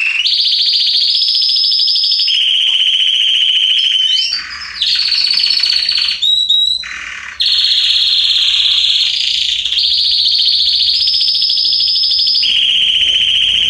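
Red canary singing: a run of rapid trills, each held a second or two before jumping to a higher or lower pitch. About four to seven seconds in, the trills break into a few quick gliding whistled notes.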